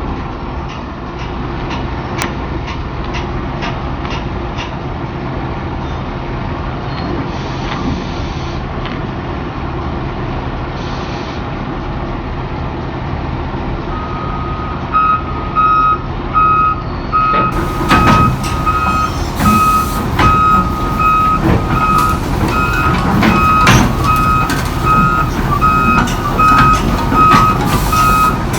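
Heavy diesel machinery running steadily. About halfway through, a repeating beep alarm of the kind that warns of a machine reversing or travelling starts and keeps going. From a little later, irregular clanks and knocks sound over the engine, louder than before.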